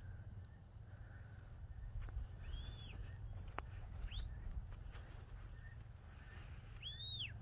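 Wind rumbling on the microphone, with three high whistled calls: one arched call rising and falling, a short upward sweep a second later, and a stronger arched call near the end.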